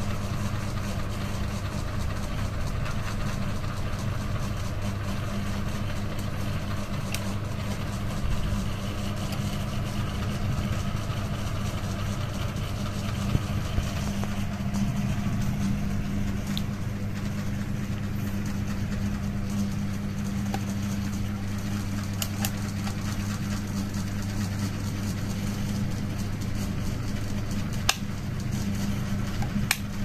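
Ceiling fan running steadily: a low, even motor hum with the rush of the spinning blades. A few brief sharp clicks stand out here and there, one just before the end.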